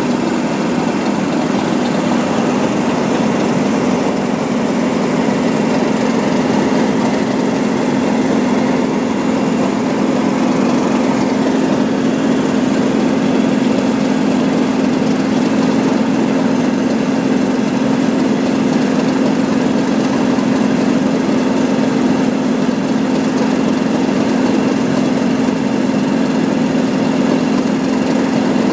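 Class 37 diesel-electric locomotives idling at a standstill: the English Electric V12 engines give a loud, steady drone that does not change.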